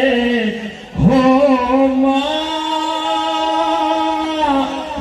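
A man singing into a microphone through a PA: a phrase breaks off just before a second in, then he holds one long note that bends down near the end.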